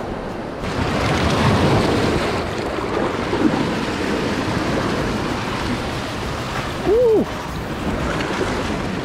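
Surf washing and foaming against the rocks of a jetty, with some wind on the microphone. About seven seconds in, a short squeak rises and then falls in pitch, briefly louder than the surf.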